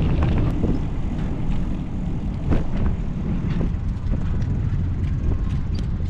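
Wind buffeting the microphone during a bicycle ride, a steady, gusting low rumble, with a few faint clicks and ticks.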